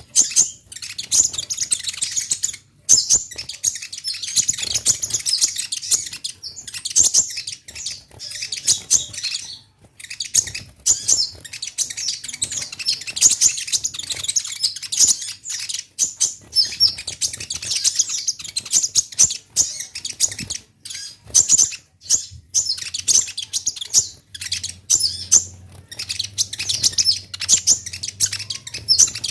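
Brown-throated sunbird (konin, 'kolibri ninja') singing a fast, high twittering song of rapid chirps, almost without a break apart from a few short pauses.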